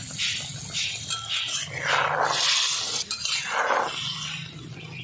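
Prawn curry bubbling in a black kadai while a spatula stirs and scrapes through it in several rough bursts, over a steady low hum.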